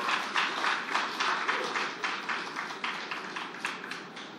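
Audience applauding, the claps thinning out and growing quieter over the few seconds.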